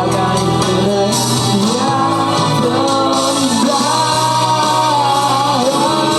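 A song: a singer's voice carrying a melody with long, held notes over instrumental backing.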